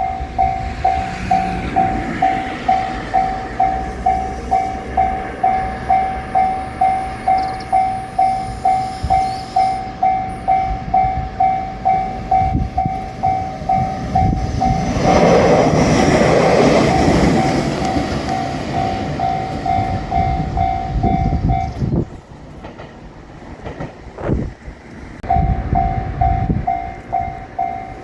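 Japanese level-crossing bell ringing at about two strikes a second while a JR Shikoku 7000 series electric train passes over the crossing, its rumble loudest a little past halfway through. The bell cuts off about three-quarters of the way in, then starts ringing again near the end.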